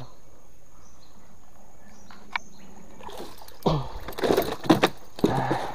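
A hooked snakehead thrashing and splashing at the side of a small boat. It is fairly quiet at first; from about three seconds in comes a run of loud splashes and knocks.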